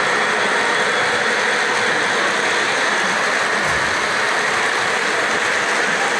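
Model train running past on the layout's track: a steady, even noise of wheels on rails and the locomotive's motor.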